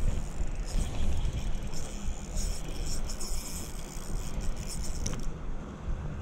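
Spinning reel being cranked to retrieve the lure: a fine ticking whir from about a second in until about five seconds, over wind buffeting the microphone.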